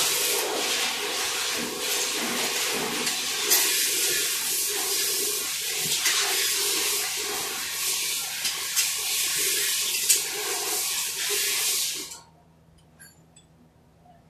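Steady, loud hiss of rushing air that cuts off suddenly about twelve seconds in, followed by a few faint ticks.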